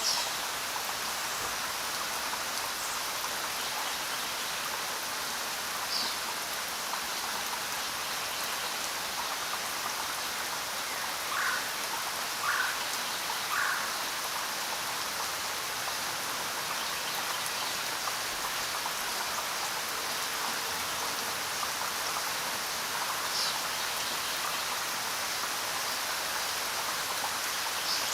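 Steady rain falling, an even hiss of drops. Now and then a single louder drop lands, with three in quick succession about halfway through.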